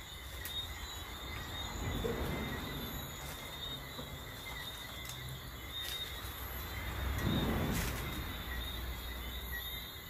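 Night chorus of crickets or similar insects: steady high-pitched trilling. Two louder swells of rustling noise come about two seconds and seven seconds in.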